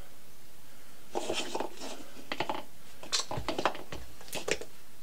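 Light clatter of kitchen objects being handled on a worktop: short knocks and clinks in several small clusters.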